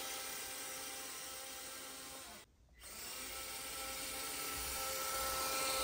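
Stock Traxxas Titan 180-size brushed motor and gears of a TRX4M crawler whining steadily at full throttle during a straight-line speed run. The whine breaks off briefly a little before halfway, then starts again and grows slightly louder near the end.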